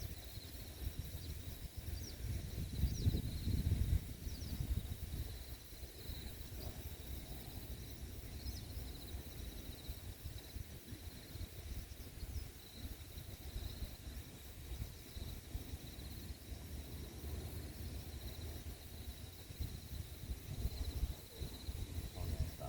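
Insects chirring steadily in a high, finely pulsing tone, over a low rumble that swells about three to four seconds in.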